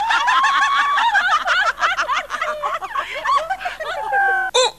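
Several people laughing and whooping together in high, cackling voices. Near the end one voice holds a steady note, followed by a short knock.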